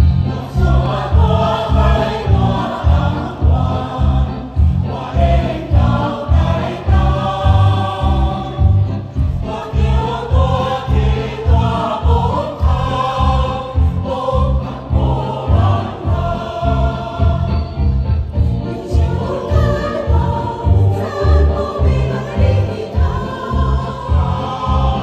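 A choir singing an upbeat Taiwanese Hokkien song over an accompaniment with a steady bass beat.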